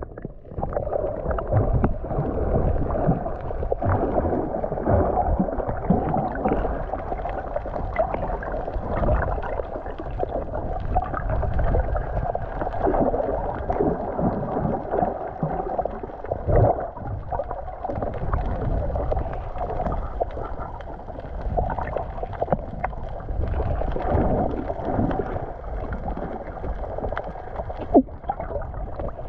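Muffled gurgling and sloshing of water around a camera held underwater, with irregular bubbly knocks and little high sound.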